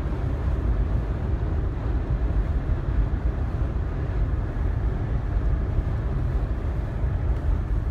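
Steady low road rumble inside a moving car's cabin on the freeway: tyre and engine noise with no change in pace.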